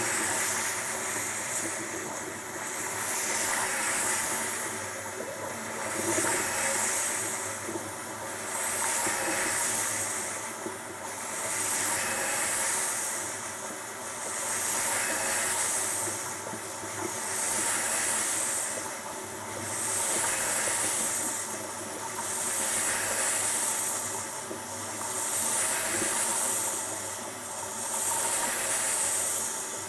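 Torgos T35 high-pressure water jetting unit with a 35 cm wide PRO-F nozzle spraying an asphalt surface: a loud, steady hiss of spray with a machine running under it, swelling and fading about every two and a half seconds.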